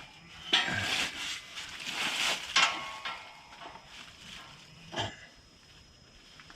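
Handling noise from fitting a gas hose to a portable heater: a couple of seconds of rustling, then a few sharp knocks.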